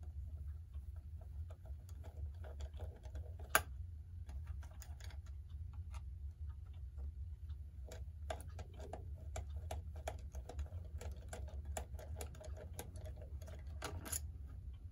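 Small irregular clicks and taps of tools and metal clock parts being handled while the clock is taken apart, with one sharper click about three and a half seconds in and a busier run of clicks in the second half.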